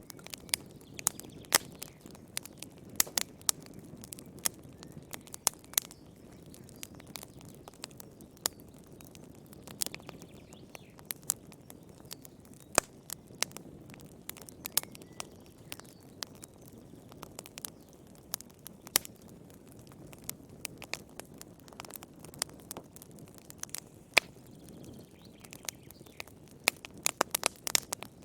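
Wood fire in a fireplace crackling: irregular sharp pops and snaps over a soft low hiss of burning, with a quick flurry of pops near the end.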